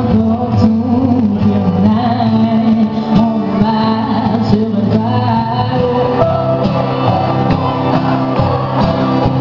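A woman singing a pop song live while strumming an acoustic guitar.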